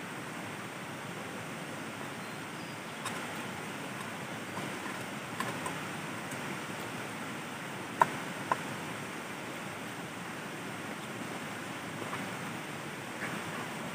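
Steady rush of a flowing river. Over it come a few light clicks of a metal spoon against a frying pan, with two sharper taps about eight seconds in.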